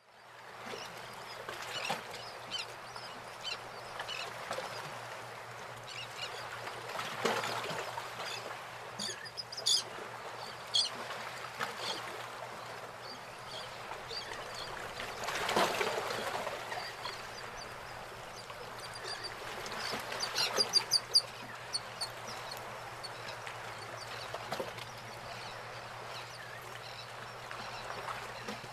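Open-air lakeside and roadside ambience: birds calling in a few quick runs of short, high chirps over a steady background, with a vehicle swelling up and passing about halfway through.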